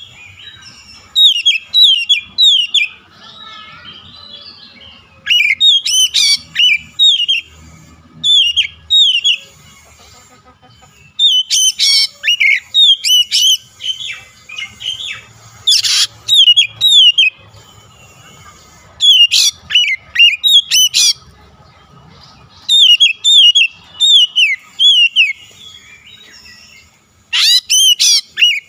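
Oriental magpie-robin singing loudly in repeated bursts of quick, sliding whistled notes, each burst a second or two long with short pauses between.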